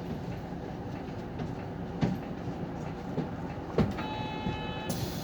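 City bus idling at a stop, with a low steady rumble and a couple of knocks. Near the end a short electronic tone sounds for about a second, followed at once by a sudden hiss of compressed air.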